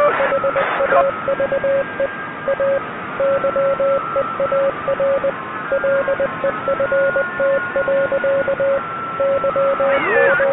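Radio-style static, cut off above the treble, with a single mid-pitched tone keyed on and off in an irregular run of short and long pulses, like Morse code. Fainter steady higher tones hum underneath.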